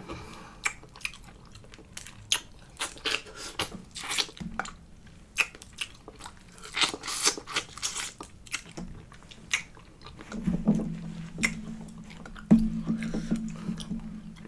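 Close-up eating sounds: Dungeness crab being cracked and picked apart by hand and chewed, a run of sharp crackles and clicks, with a low hum in the second half.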